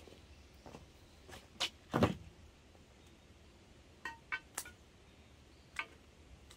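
A few light clicks and clinks of small objects being handled at a table, with one duller, louder thump about two seconds in, followed by a quick run of three ringing clinks and a last click near the end.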